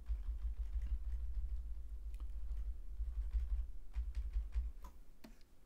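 Computer keyboard keys tapped rapidly, about six presses a second: Ctrl+Z struck over and over to undo step after step. A low rumble runs beneath the clicks and stops near the end.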